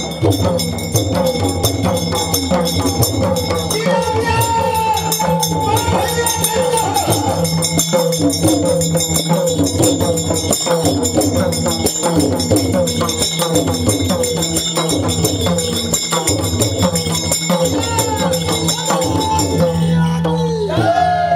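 Devotional folk music: hand drums and jingling percussion keeping a steady beat, with a bending, wavering melody line sung over it.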